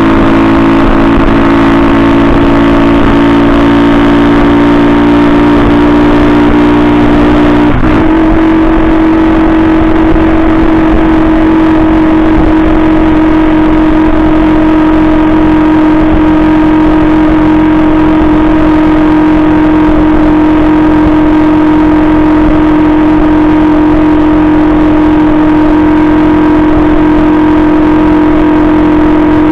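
Benzer Yankee 50cc moped's single-cylinder four-stroke 139FMB engine running steadily while riding along. The engine note changes abruptly about eight seconds in, then holds steady again.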